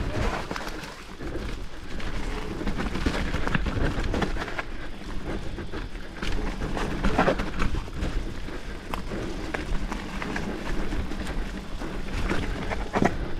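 Mountain bike being ridden along a dirt trail: tyres rolling over the ground with a steady low rumble, and frequent sharp clicks and knocks as the bike rattles over bumps.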